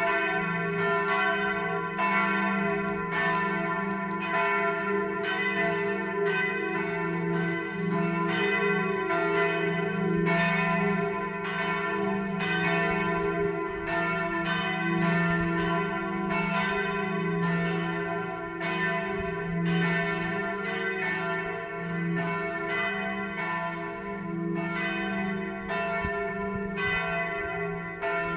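Bells ringing in a continuous peal, strike after strike without a pause, over a steady low hum of the bells' sustained tones.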